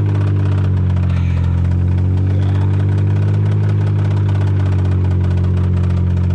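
Vehicle engine idling steadily, its pitch dipping slightly and recovering about a second in.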